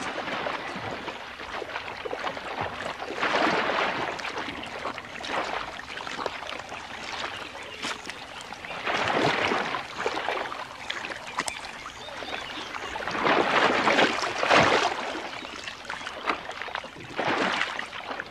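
Muddy water sloshing and splashing as crocodiles thrash and churn in a shallow pool, swelling in about four louder surges.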